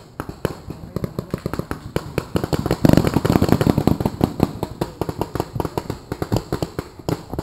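Paintball markers firing in irregular rapid volleys, several sharp pops a second, louder for a second or so about three seconds in.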